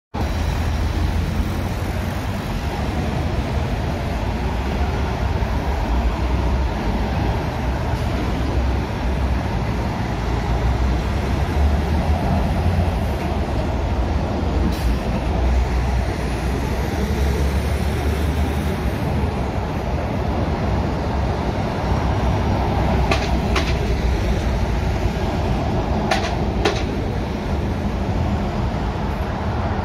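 Road traffic: articulated lorries and cars driving past, a heavy low rumble of diesel engines and tyres, with a few short clicks in the last third.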